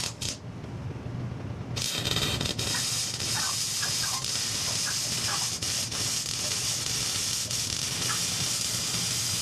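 Wire-feed welder laying a bead on the steel winch mount of a UTV front bumper: a steady crackling hiss of the arc that starts about two seconds in.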